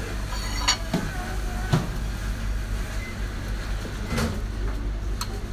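Steady low hum of kitchen background noise, with a few light knocks and clicks from a metal palette knife and plate being handled on the counter.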